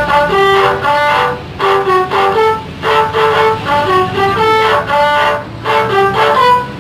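Bus 'telolet' multi-tone horn playing a quick melody of rising and falling notes in short phrases, with brief breaks between phrases.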